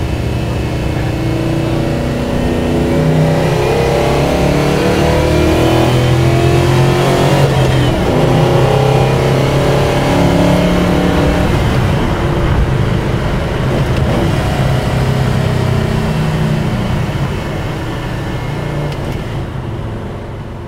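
Car engine running and revving, its pitch shifting up and down, loud at first and gradually fading toward the end.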